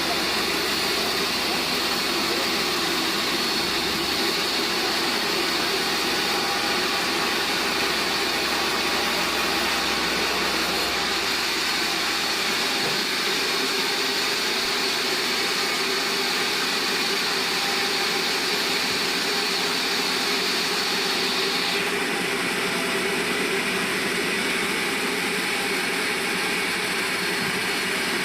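Band sawmill running steadily as it saws a large bayur log, a continuous machine noise with a high whine that drops away about 22 seconds in.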